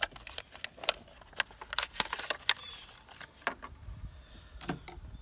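A run of about a dozen sharp clicks and light rattles from small parts and their packaging being handled by hand, busiest in the first half.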